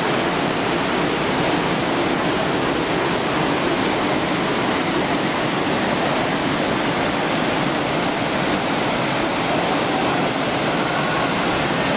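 Korbu waterfall: falling water in a loud, steady rush.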